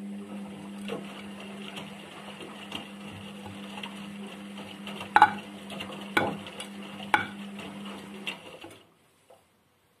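Indesit IWUC 40851 front-loading washing machine in its wash phase: the motor hums steadily as the drum turns the wet laundry, with swishing and a knock about once a second as the load drops. The motor stops shortly before the end.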